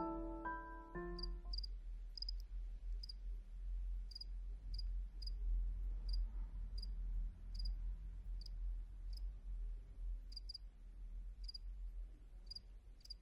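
A cricket chirping, short high chirps repeating about twice a second over a faint low rumble. The last notes of soft piano music fade out in the first second or so.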